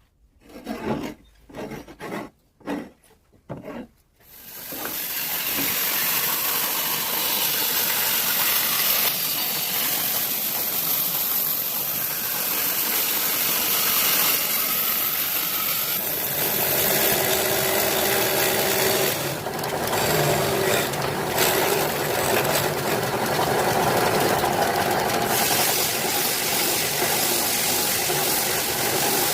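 Wood being worked with a tool while a wooden chakla (rolling board) is made: about five short rasping strokes, then a continuous rasping grind from about four seconds in, with a high steady whine over it for a while.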